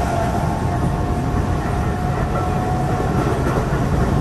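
Keihan electric limited-express train running along the line, heard from inside the front car: a steady rumble of wheels and running gear. A steady tone rides over it and fades out about three seconds in.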